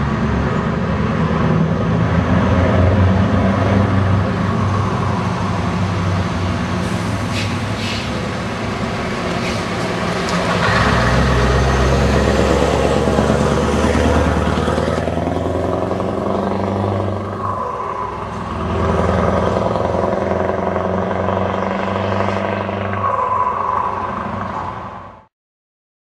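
Scania 164L 580's V8 diesel running loud as the truck moves off and drives by, the engine note rising and falling as it pulls. The sound cuts off suddenly near the end.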